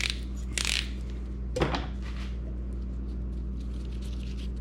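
Two short scrapes, then a single clunk about a second and a half in, as the metal socket is handled, over a steady low hum.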